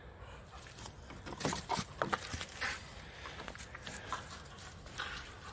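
A dog's paws scuffling and landing in dry leaf litter as it jumps and comes down: irregular rustling and crackling, busiest about one and a half to three seconds in and again near the end.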